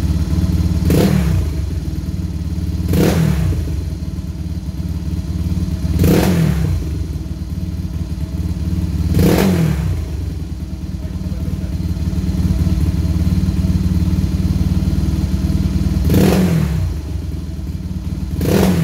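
Kawasaki Fury two-stroke motorcycle engine idling and blipped to six short revs, fitted with a Kitaco Power Rev racing CDI that is being tried out for rev response.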